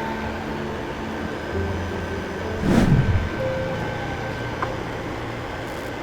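Background music with steady, held notes, and a brief swell of noise about three seconds in.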